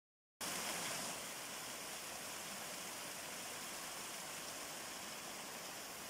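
Water spilling down a stepped rock cascade into a pool: a steady rush of falling water that starts just under half a second in.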